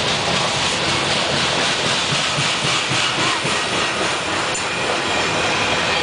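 Freight cars of a long mixed freight train rolling past close by: a steady noise of steel wheels running on the rails.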